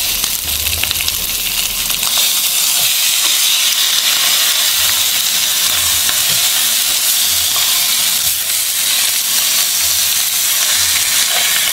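Pieces of fish sizzling in about a teaspoon of oil in a nonstick frying pan, a steady hiss, with light scrapes and taps as a silicone spatula turns them over.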